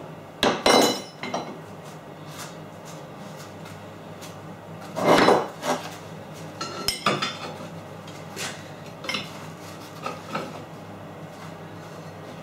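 Steel pieces clinking and knocking against each other and the workbench as they are set in place for tack welding: a handful of separate clanks, the loudest about five seconds in.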